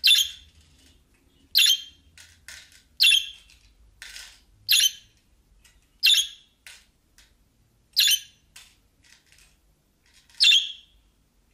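Budgerigar calling: seven loud, short, high-pitched calls, roughly one every one and a half seconds, with fainter brief chirps in between.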